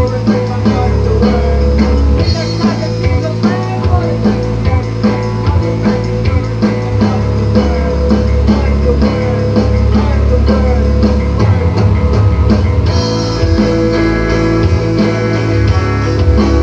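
Screamo band recording: electric guitars and a drum kit playing a loud, dense passage with a steady beat.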